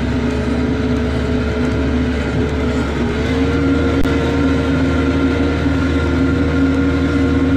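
Kioti RX7320 tractor's diesel engine running steadily under load while pulling a disc-chisel plow, a constant hum with a higher whine over it, rising slightly in pitch about three seconds in.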